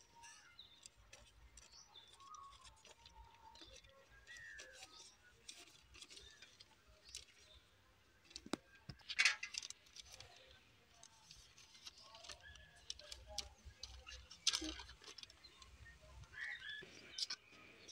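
Faint rustling and crinkling of paper sheets as a letter is unfolded and handled, with scattered soft clicks and two louder rustles, about nine and fourteen seconds in.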